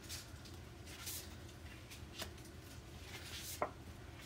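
Cardstock journaling cards being handled and laid down on a cutting mat: soft paper swishes about once a second, with a sharp tap about three and a half seconds in.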